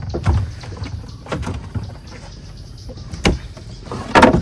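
Small boat's motor running steadily at low speed, with several sharp knocks.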